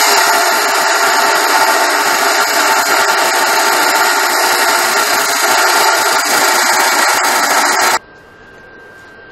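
Bosch abrasive chop saw cutting through steel bar, the disc grinding loudly and steadily under load. It cuts off suddenly near the end, leaving a faint steady hum with a thin high tone.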